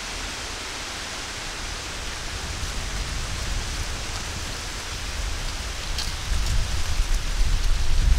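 Steady hiss of wind in the trees, with wind rumbling on the microphone that grows louder and gustier in the last couple of seconds.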